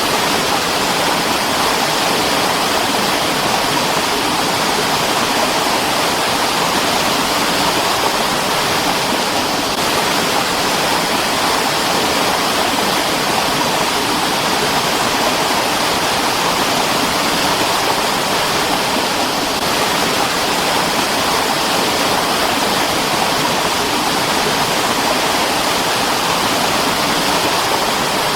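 Mountain water stream running steadily: an even, unbroken rush of water.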